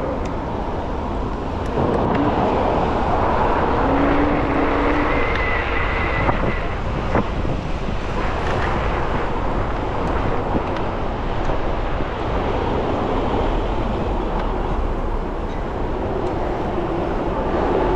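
Steady wind rushing over the microphone while riding an electric scooter through city streets, with road and traffic noise underneath.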